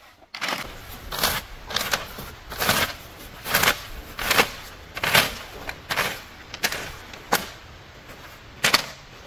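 Dry leaves and twigs rustling and scraping in repeated strokes, about one every three-quarters of a second, as a bundle of bamboo strips rakes them into a pile. A single sharp crack of wood comes near the end.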